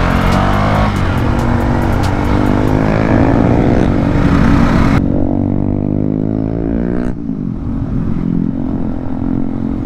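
KTM Duke motorcycle engine pulling through the gears. The revs climb and drop sharply at a gear change about a second in, then climb again and drop at another shift near seven seconds.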